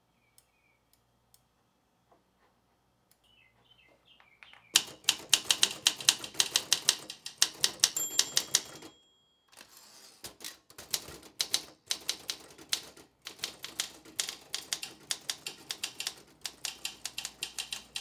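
1950s Olympia manual typewriter typed on fast: rapid clacking keystrokes that start about five seconds in, with a couple of short pauses. A brief bell-like ring sounds about eight seconds in; before the typing there are only a few faint clicks.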